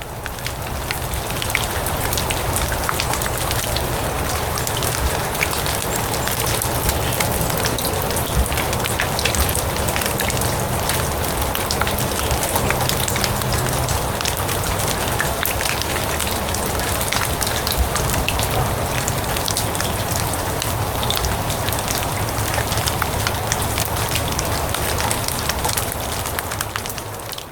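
Steady rain falling on grass, a dense patter of fine drops. It fades in over the first couple of seconds and fades out near the end.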